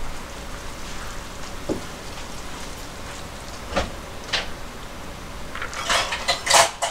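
Cooked Chinese noodles put with chopsticks into a bowl of water in a stainless steel sink: a few single knocks and clinks, then a loud run of splashing and clattering a little before the end, over a steady hiss.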